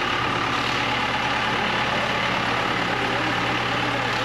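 A large engine idling steadily.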